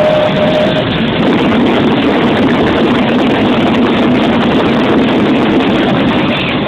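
Daytime fireworks going off in a continuous barrage: a loud, steady rushing noise thick with crackling as smoke and sparks shoot up. A single held tone fades out in the first second.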